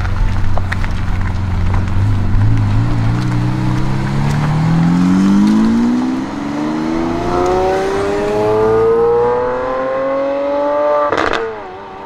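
Lamborghini Aventador SVJ's naturally aspirated V12 running at low revs, then accelerating hard with its pitch rising steadily for several seconds. Near the end an upshift brings a sharp crack and a drop in pitch.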